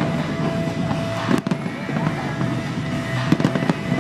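Fireworks bursting, with a sharp bang about one and a half seconds in and a few smaller pops near the end, over music playing throughout.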